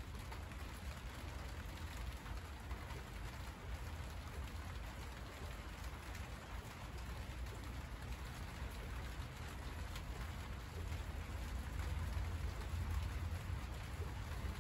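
Steady rain pattering on broad monstera leaves, with a low rumble underneath that swells slightly near the end.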